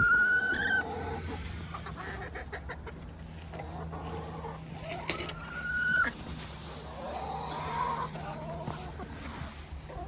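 Flock of backyard hens clucking while feeding, with a few drawn-out calls: one at the start, another about five seconds in, and softer ones near the end.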